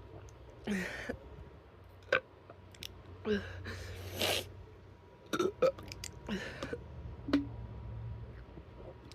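A person burping several times in separate bursts while chugging a drink, with a few short sharp clicks between the burps.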